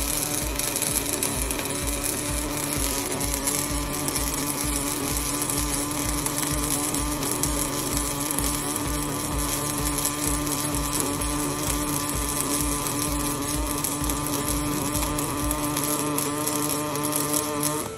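Welding arc from a Panasonic welding robot's torch, burning continuously with a steady buzzing crackle and a hum, cutting off suddenly at the very end as the arc stops.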